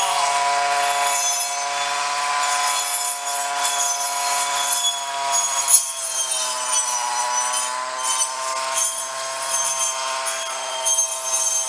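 Two-stroke engine of a Snapper commercial weed eater fitted with a circular saw blade, running steadily at high speed as it cuts grass. A sharp knock comes about six seconds in, and the engine note dips slightly, then picks back up.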